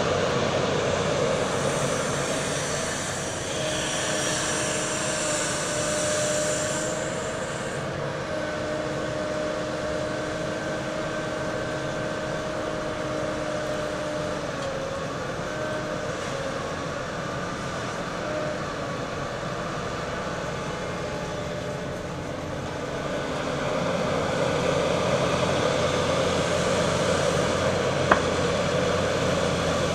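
Heavy construction machinery running: a steady mechanical noise with a sustained whine through the middle stretch, and one sharp click near the end.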